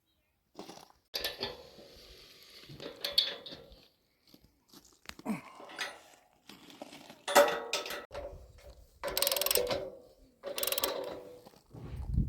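Steel parts of a portable sawmill clanking and rattling in several separate bursts, with a metallic ring.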